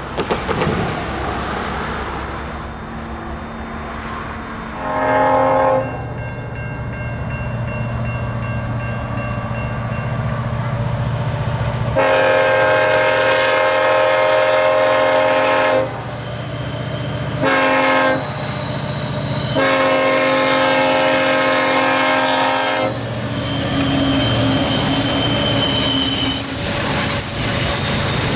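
Norfolk Southern diesel freight locomotives approaching with a steady low engine rumble while the horn sounds a chord in four blasts: a short one about five seconds in, a long one, a short one, then a long one. Afterwards the double-stack intermodal cars roll past with a steady rumble of wheels on rail.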